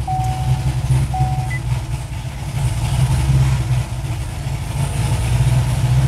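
Modified 6.0-litre LS2 V8 of a 2006 Corvette C6, with aftermarket cam, headers and intake, idling just after being started. Two short electronic beeps sound in the first second and a half.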